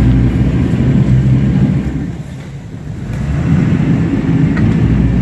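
Lobster boat's engine running with a low, steady hum. It eases off about two seconds in and builds back up a second or so later.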